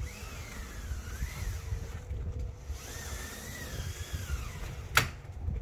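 Pleated insect-screen door sliding along its track, with a low rumble and two wavering high-pitched tones, then a single sharp click about five seconds in as the door shuts against its frame.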